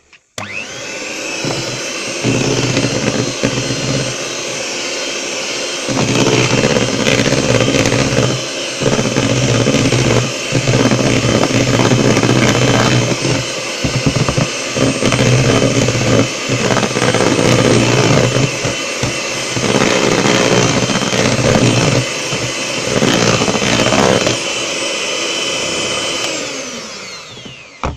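Electric hand mixer running, its twin beaters whisking thick sponge-cake batter in a plastic bowl. The motor whirs up at the start, gets louder about six seconds in, and spins down near the end.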